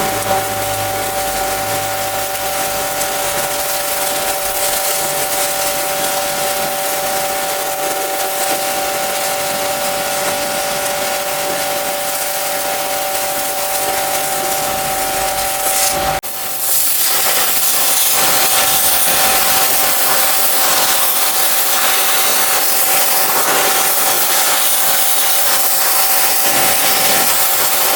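Pressure washer spraying: a steady hiss of the water jet over the pump's even whine. About sixteen seconds in the sound changes abruptly: the whine drops back and the spray hiss becomes louder and brighter.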